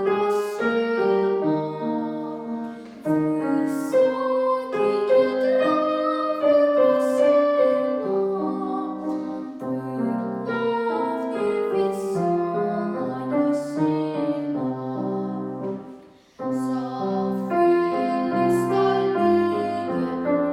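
A female voice singing a Russian song with piano accompaniment.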